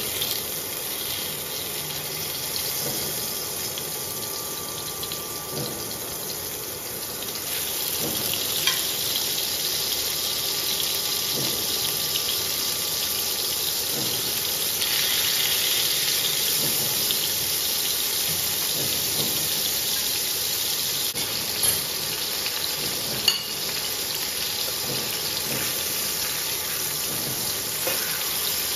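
Food sizzling steadily in a frying pan while it is stirred, with a few sharp clinks of a utensil against the pan.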